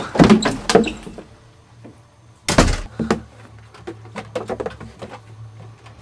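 A door thudding shut about two and a half seconds in, then faint small knocks and clicks in a small room.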